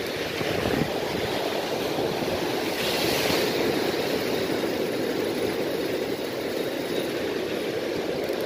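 Sea surf churning and washing against the rocks below, a steady rushing noise, with a brief brighter hiss about three seconds in.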